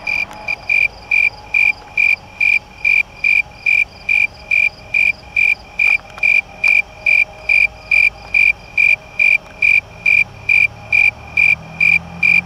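Snowy tree cricket singing close by: a steady train of evenly spaced, high-pitched chirps, about two and a half a second.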